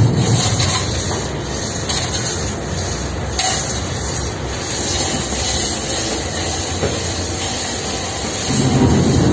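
Steady rumble and hiss of a roll-on/roll-off ferry's machinery running, swelling slightly near the end.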